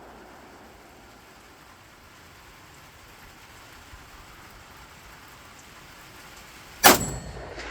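A single shot from an AKM-pattern 7.62×39 rifle near the end, the loudest sound, with a short ringing tail. Before it there are several seconds of faint, steady background hiss.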